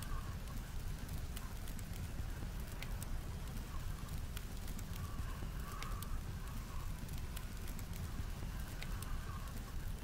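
Wood campfire crackling, with sharp pops scattered irregularly throughout, over a steady low rumble of blizzard wind.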